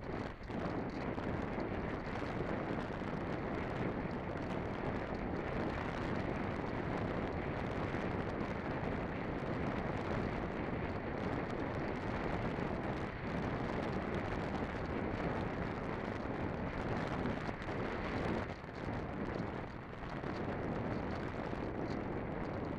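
Steady rush of wind buffeting the microphone, a dense roar with no engine or motor tone, briefly easing a couple of times near the end.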